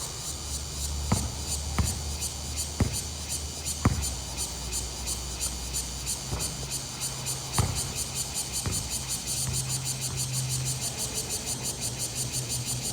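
Insects chirping in a fast, even pulsing rhythm, with a low steady hum under it. Sharp knocks come through at irregular gaps: a few about a second apart in the first four seconds, then two more later on.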